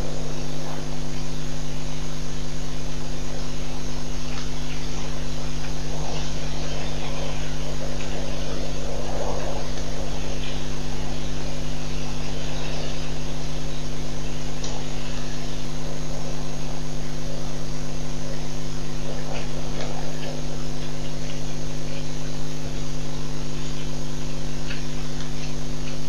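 Steady electrical mains hum: a loud, unchanging buzz of several fixed pitches, with only faint scattered sounds beneath it.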